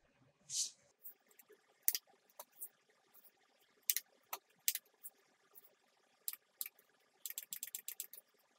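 Plastic buttons of a digital alarm clock being pressed and its plastic case handled: single sharp clicks every second or so, with a quick run of clicks near the end.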